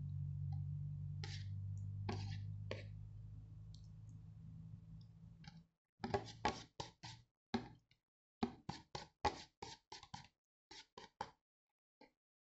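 Long acrylic fingernails tapping on a disposable noodle bowl: about twenty sharp, irregular clicks in the second half. Before them, a low steady hum fades out.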